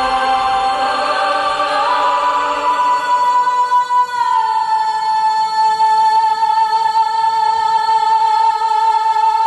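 Music with choir-like voices holding long sustained notes. The pitch steps up about two seconds in, dips slightly around four seconds, then settles on one held note.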